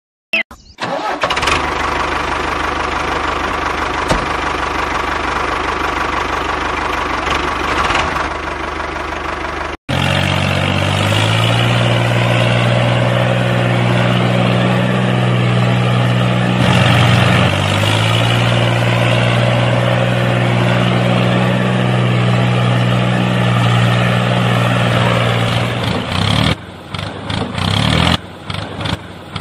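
Tractor engine running. For about ten seconds it is a noisier, wide-spread engine sound. It then cuts off abruptly and resumes as a steadier, deeper engine note that dips briefly partway through. Near the end it breaks up into uneven sputters.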